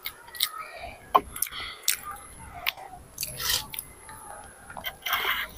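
A child chewing pancit canton noodles with wet smacks and irregular clicking mouth noises, picked up close by a clip-on microphone on his shirt. A louder noisy smack comes about five seconds in.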